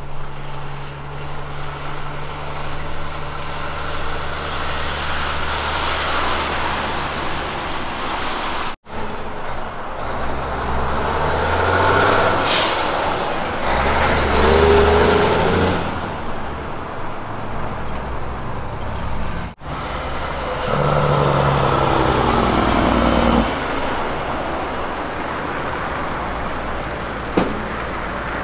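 Kenworth road trains passing one after another, diesel engines running heavily with tyre and road noise. A short hiss of air comes about twelve seconds in. Near the end a truck's engine note climbs and then drops off sharply.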